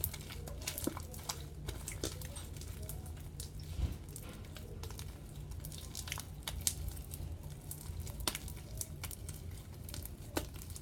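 Homemade glitter slime, still sticky, being kneaded and stretched by hand: an irregular run of small sticky clicks, pops and squelches over a steady low hum.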